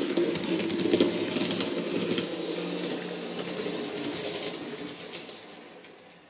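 Model train, a German diesel multiple unit model, running past close by: its small electric motor whirring and its wheels clicking on the track, fading steadily as it runs away.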